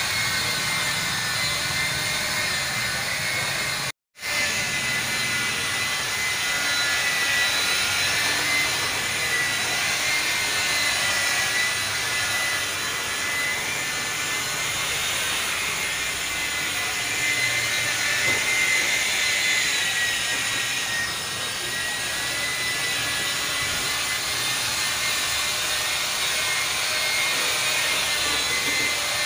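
Electric rotary car polisher running steadily with a high, slightly wavering motor whine. The sound cuts out completely for a moment about four seconds in.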